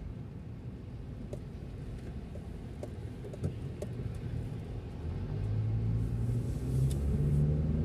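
Low rumble of road and engine noise inside a moving car. About five seconds in, the engine note gets louder and steps up in pitch as the car picks up speed.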